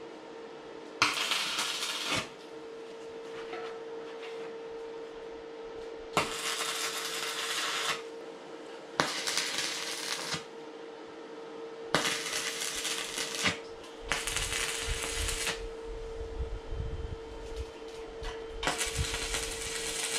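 Electric arc welder welding steel square-tube crossbars onto a frame, in six short runs of one to two seconds each. A steady hum at one pitch carries on underneath throughout.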